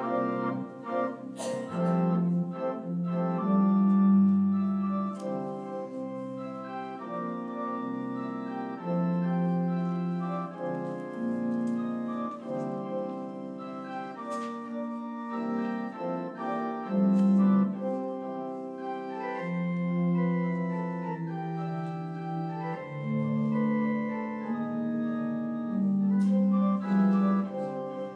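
Church prelude played on a keyboard in an organ voice: slow held chords under a melody line.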